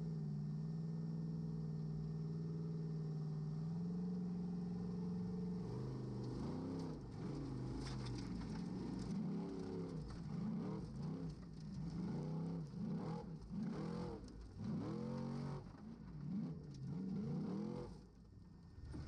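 Formula offroad car's engine held at a steady high pitch, then revved up and down over and over, roughly once a second, as the throttle is worked on and off, easing off briefly near the end.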